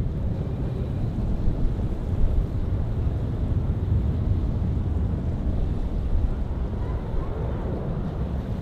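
Wind buffeting the microphone, a steady low rumble with rapid gusty fluctuation.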